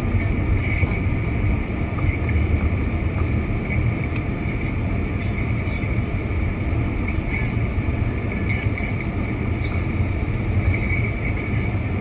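Steady low rumble of a vehicle in motion, with a faint constant high whine above it.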